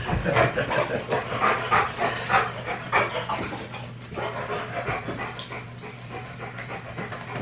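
A dog panting quickly in excitement, a fast run of short breaths that grows fainter over the last few seconds.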